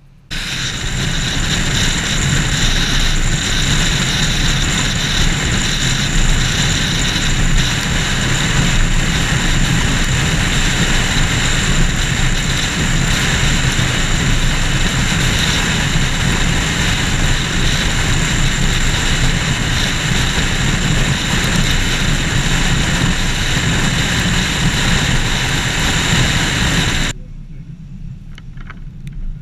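Loud, steady rushing noise of a car driving on the road, with tyre and wind noise, starting suddenly and cutting off abruptly near the end.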